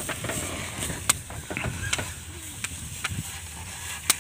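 Carabao-drawn carts rattling and knocking as they are pulled across a harvested rice field, over a steady low rumble, with sharp knocks about a second in and near the end.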